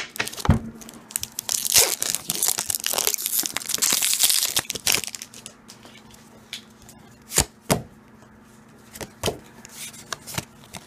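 Pokémon TCG booster pack's foil wrapper being torn open and crinkled for a few seconds, then a few sharp clicks as the cards are taken out and handled.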